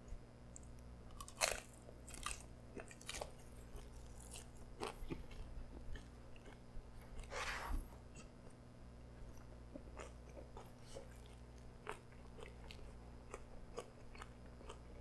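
A person chewing a mouthful of pretzel dog: quiet chewing with scattered soft crunches and mouth clicks, the loudest crunch about a second and a half in.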